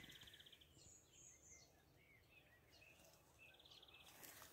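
Faint songbirds chirping and whistling, with a short rapid trill at the start and another near the end.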